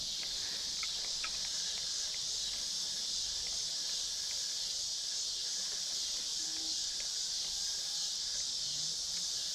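Steady, high-pitched chorus of summer insects, even and unbroken, with a few faint short ticks.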